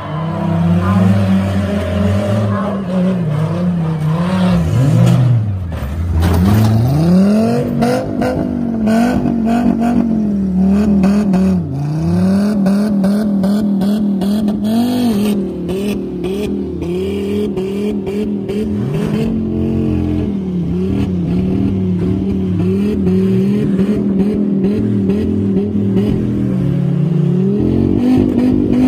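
Engines of demolition-derby compact pickup trucks revving up and down again and again as they ram each other, with repeated sharp crashes of metal on metal, thickest in the middle stretch.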